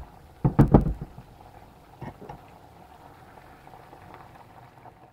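A wooden spoon scrapes and knocks against the pan a few times, loudest within the first second, with two lighter knocks about two seconds in. Under it, a tomato stew with canned fish simmers with a faint steady bubbling.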